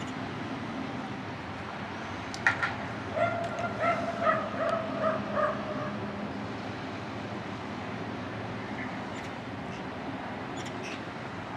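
A dog barking in a quick run of about seven short yaps a couple of seconds in, over a steady low background rumble.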